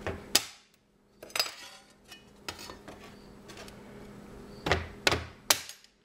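A scored mirror sheet being snapped apart by hand along its score lines: a series of sharp cracks and clinks as pieces break off, the loudest just after the start and another cluster near the end.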